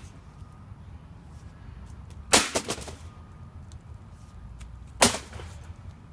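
Sledgehammer blows smashing the metal case of an Apple Xserve G5 server, two heavy impacts about two and a half seconds apart, each followed by a brief clatter.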